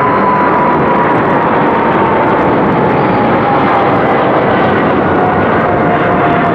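Boeing 777F freighter's twin GE90 turbofans at takeoff power just after lift-off: a loud, steady jet roar, with an engine whine that slowly falls in pitch as the climbing jet passes.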